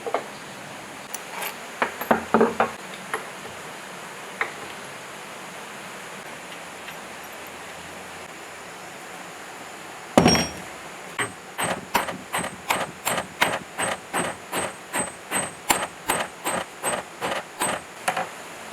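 Hammer blows on metal while a 22 kW electric motor is being knocked apart. A few scattered knocks come first, then a lull, then one heavy blow about ten seconds in. After that the strikes are steady, about two a second, each with a faint high ring.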